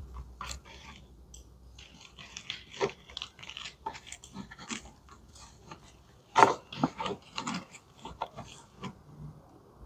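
Gloved hands handling and repositioning plastic dolls: irregular clicks, taps and short rustles as the plastic bodies and limbs are moved, with one louder knock about six and a half seconds in.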